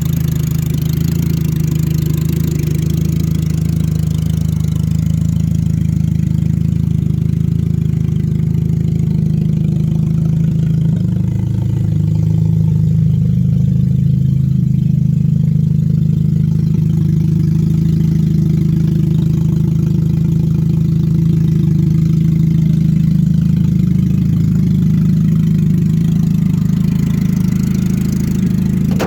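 A car engine idling steadily, its pitch shifting slightly about eleven seconds in.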